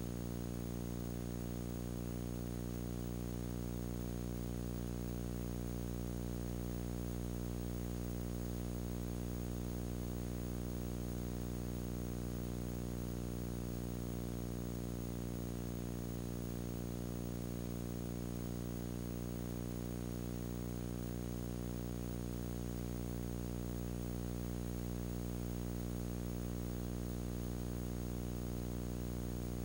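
A steady electrical hum and buzz over a faint hiss, unchanging throughout: a recording hum rather than any sound from the work being shown.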